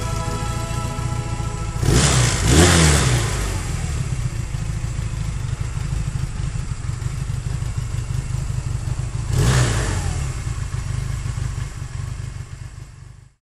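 Honda CB250 motorcycle engine idling, its throttle blipped twice so the revs rise and fall, about two seconds in and again near ten seconds. The sound cuts off suddenly just before the end.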